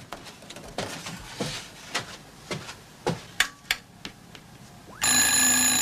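A few scattered knocks and clicks, then about five seconds in a telephone bell starts ringing loudly.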